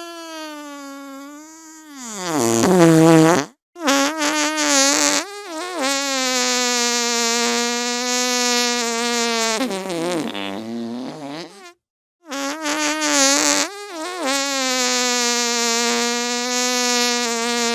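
Long, loud fart-like buzzing in three drawn-out blasts, each wavering in pitch and sliding down as it tails off, with short breaks about four and twelve seconds in.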